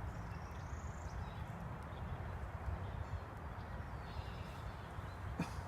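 Small campfire crackling over a steady rushing background, with one sharper pop near the end.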